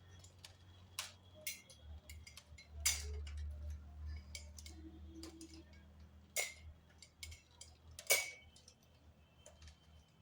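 A series of irregular sharp clicks and taps, loudest about three, six and a half and eight seconds in, over a low steady hum.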